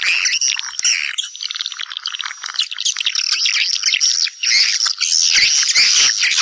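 A dense, unbroken chorus of swiftlets chirping and twittering, the kind of swiftlet call used to draw the birds in to nest. A thin steady high tone runs underneath.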